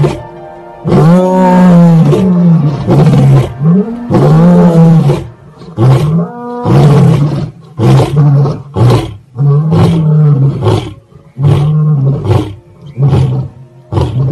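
Lions roaring: a few long, drawn-out roars followed by a run of shorter, grunting roars that come closer together, the usual close of a lion's roaring bout.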